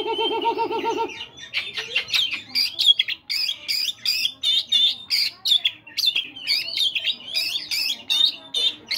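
Oriental magpie-robin (kacer) singing a loud, varied song of rapid high whistles, sweeps and chattering notes. It opens with about a second of low, buzzy pulsed rattle.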